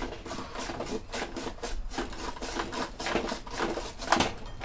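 Onion being cut in a handheld Nicer Dicer vegetable cutter: a run of quick, irregular scraping strokes as the onion is worked across the blade, the loudest stroke about four seconds in.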